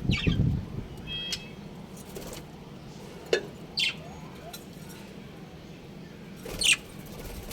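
Budgerigars giving a handful of short, scattered chirps, the loudest near the end, over a faint steady low hum.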